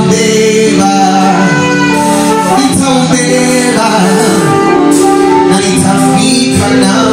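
Live band music with a voice singing over sustained instrumental chords.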